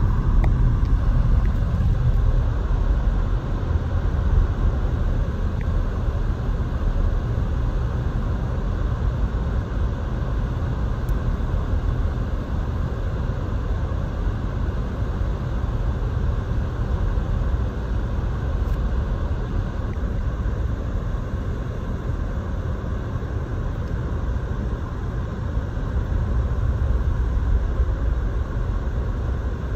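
Steady low rumble of a car driving on a slushy, snow-covered road, heard from inside the cabin.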